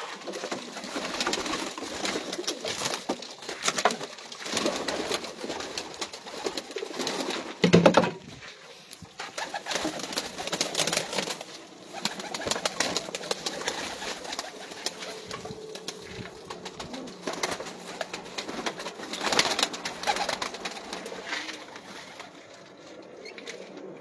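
Domestic pigeons cooing in a loft, with scattered clicks and knocks throughout and one loud bump about eight seconds in.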